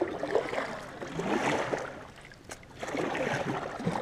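Water splashing and trickling around kayaks as they are paddled and drawn together, with a single sharp knock about two and a half seconds in.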